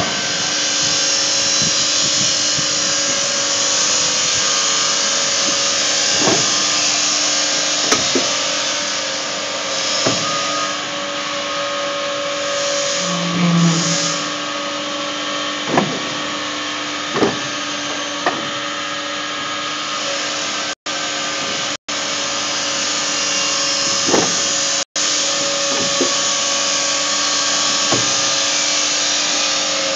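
Hydraulic CNC exhaust-pipe bending machine running, a steady mechanical hum with constant tones, with short knocks and clanks every few seconds as it works. The sound cuts out briefly three times in the second half.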